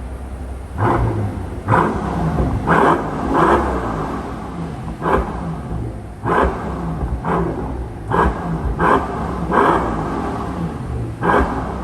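Mercedes S65 AMG twin-turbo V12 exhaust as the engine is revved in short throttle blips, about a second apart, each rev rising sharply and falling back.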